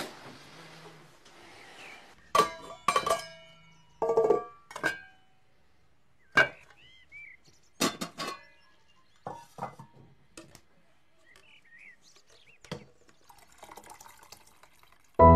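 Plates and metal pots and pans being handled at a kitchen stove: a series of separate clinks and clatters, some with a short ringing tone. Music comes in at the very end.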